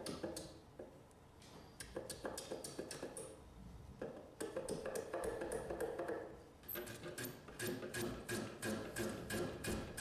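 Small block plane taking quick, short strokes across the end of a wooden through-tenon, chamfering its edges by hand. The strokes come as a run of light scraping clicks, scattered at first and about four a second in the last few seconds.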